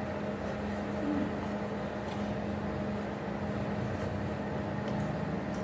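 Steady mechanical hum with a low drone and a fainter higher tone, like a running air conditioner or similar machine, with a few faint soft clicks over it.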